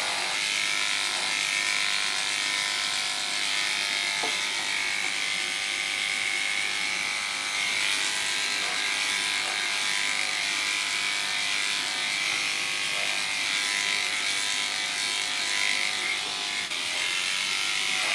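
Wahl corded electric dog clipper fitted with a snap-on E comb attachment, running with a steady motor hum as it is worked through the hair on a dog's face and head.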